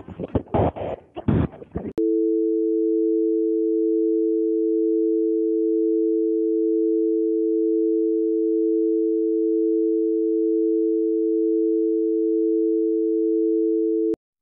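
About two seconds of choppy, broken-up noise, then a telephone dial tone: a steady, unbroken two-note hum that stops abruptly with a click near the end.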